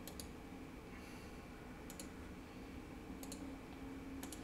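Computer mouse clicks: four quick pairs of sharp clicks, a second or so apart, over a faint steady room hum.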